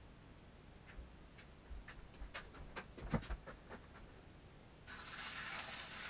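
A run of light clicks and knocks of a container being handled, then, about five seconds in, a short stretch of water being poured into a glass aquarium tank.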